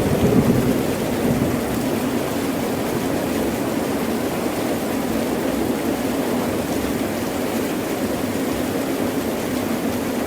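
Heavy rain falling steadily, with a thunder rumble fading out in the first second or so.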